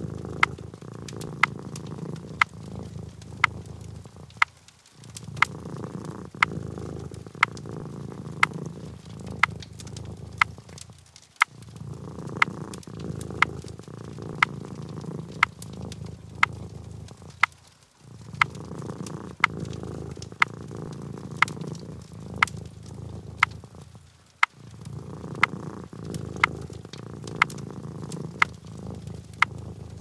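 Domestic cat purring, a low rumble in long slow rounds that break off briefly about every six and a half seconds as the cat breathes. Sharp clicks come about once a second over the purr.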